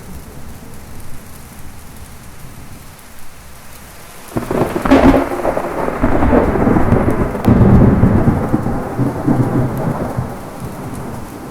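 Heavy rain falling steadily, with a thunderclap about four seconds in: a sharp crack followed by rolling rumble lasting several seconds, easing off near the end.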